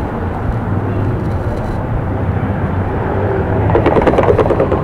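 Steady road-traffic rumble, with a louder burst of rapid clattering about four seconds in.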